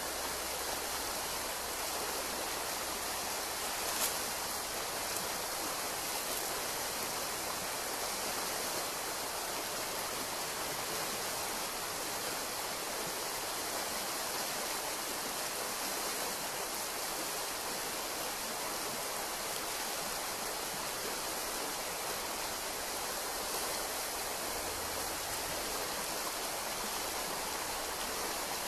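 Shallow forest stream rippling over stones in a steady, even rush of water, with one brief tick about four seconds in.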